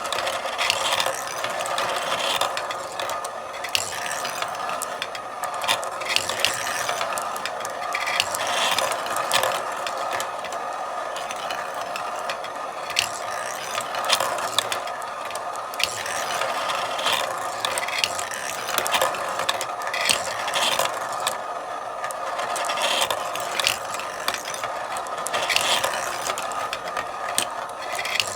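Marbles rolling along a marble run's tracks, with a steady rolling rattle and many quick clicks as marbles knock against the track and one another.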